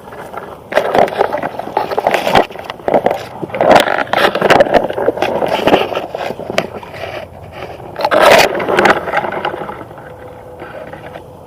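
Irregular scraping and rustling with a few sharp clicks. It comes in loud bursts, loudest around the middle and again about eight seconds in, then dies down near the end.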